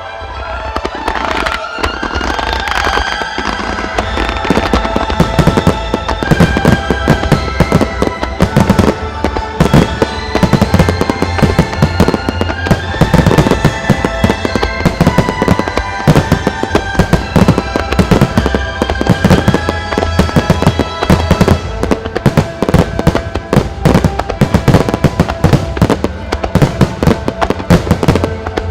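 A rapid barrage of aerial firework shells bursting, many bangs a second, thickening and getting louder a few seconds in, over orchestral music playing with the display.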